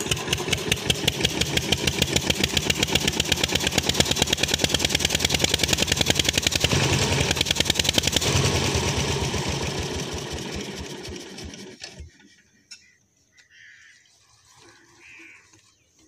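Petter single-cylinder diesel engine driving a water pump by a flat belt, chugging with even firing strokes, then slowing and coming to a stop about twelve seconds in.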